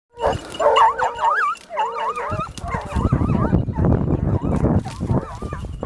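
Hunting hounds baying on a wild boar: high, warbling, wavering cries given over and over, with heavy rustling and knocking that grows loud about halfway through.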